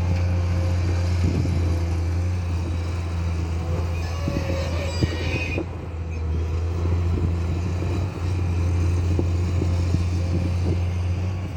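Excavator's diesel engine running steadily with a low drone, with scattered knocks from the digging. About halfway through there is a brief higher-pitched whine that cuts off suddenly.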